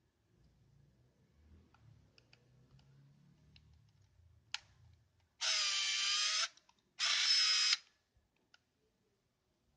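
Olympus AZ-1 Zoom compact film camera: a sharp click, then the camera's built-in electric motor whirs twice, for about a second each time, with a short pause between, over faint handling noise.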